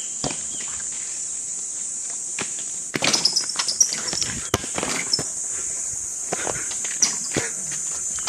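Steady high-pitched drone of insects, with irregular knocks, scuffs and footsteps that grow louder and busier from about three seconds in.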